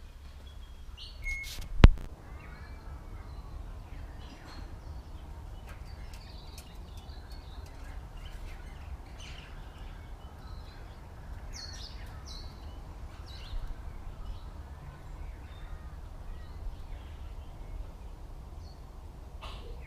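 Wild birds calling, short chirps and calls from more than one bird scattered throughout, over a steady low rumble. A single sharp click about two seconds in is the loudest sound.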